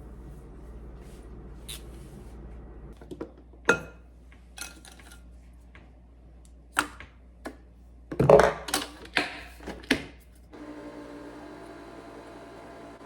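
Scattered clicks and knocks of small objects being handled, with a denser cluster of knocks and rustles about eight to ten seconds in, over a steady room hum.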